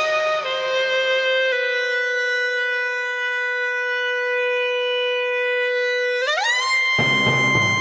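Soundtrack music carried by a single wind-instrument melody: a long held note that steps down twice in the first second and a half, holds steady, then slides up about an octave near the end as a low accompaniment comes in.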